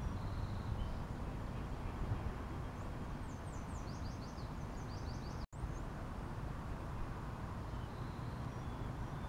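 Outdoor ambience: a steady low rumble with a small bird singing a quick run of high, falling chirps from about three to five seconds in. The sound drops out for an instant about halfway through.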